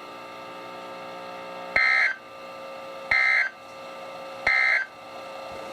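Three short bursts of SAME digital data tones, about a second apart, each a brief warbling chirp near 2 kHz lasting about a third of a second, broadcast over NOAA Weather Radio: the end-of-message code that closes the Required Weekly Test. A steady hum runs underneath between the bursts.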